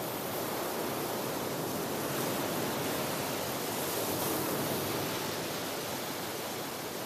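Ocean surf: a continuous rushing of waves that swells and eases gently.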